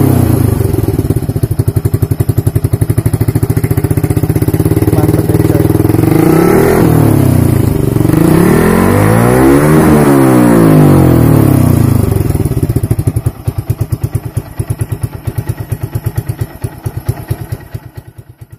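Yamaha New Jupiter MX 135's single-cylinder four-stroke engine running through an aftermarket Satria FU CBU Thailand slip-on silencer, revved up and back down twice. About two-thirds of the way through it drops to a pulsing idle that fades out near the end.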